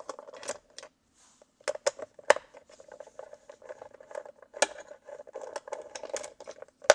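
Small metal Torx key clicking and scraping against Torx screws and the metal screen-mount plate as the screws are turned out: a string of irregular light metallic clicks.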